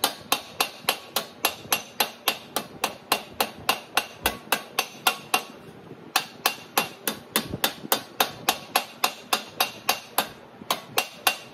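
Hand hammer striking sheet steel over a hammer form in a steady rhythm of about four blows a second, each blow with a short metallic ring, briefly pausing twice. The blows stretch the panel's outer flange around its curve.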